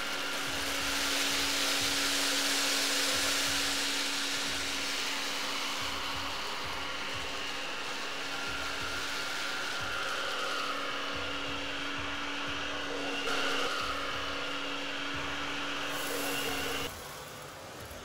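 Miele Triflex HX1 cordless stick vacuum running on its lowest suction setting, picking up rice and poppy seeds from low-pile carpet: a steady motor whir with a constant hum. It drops quieter about a second before the end.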